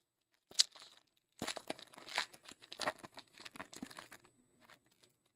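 Foil wrapper of a Donruss Football hobby pack being torn open and crinkled by hand. A single sharp snap comes first, then about three seconds of dense crackling and rustling.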